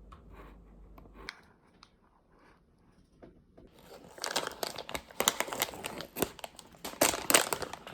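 A few faint small clicks, then from about four seconds in, loud crinkling and rustling of wrapping being handled and torn open.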